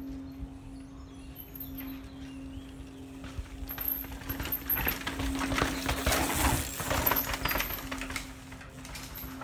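Downhill mountain bike passing at speed over rocks and roots: a rattle of tyre impacts, chain slap and suspension clatter that builds from about four seconds in, is loudest in the middle and fades near the end, over a steady low hum.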